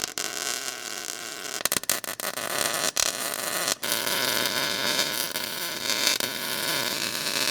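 Electric arc welding: the arc's steady crackling hiss, broken by a few short pauses where the arc stops and restarts.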